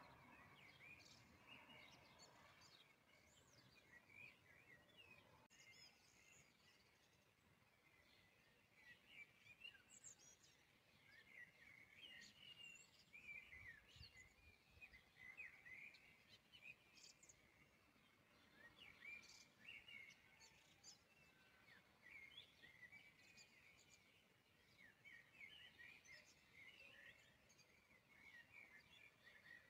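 Very faint bird chirping: many short, scattered chirps over a low hiss.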